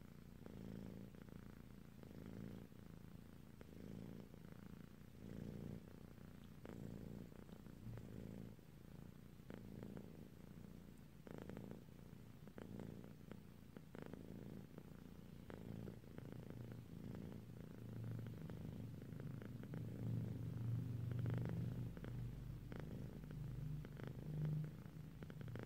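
Kitten purring close to the microphone: a low rumble that swells and eases with each breath, growing a little louder about three-quarters of the way through, with a few faint clicks in the middle.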